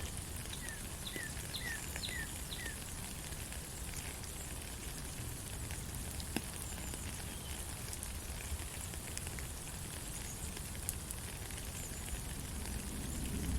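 Steady rain falling in a forest, with scattered drips and drops. About half a second in, a bird gives five short chirps, about two a second, then stops; a few faint high whistles follow later.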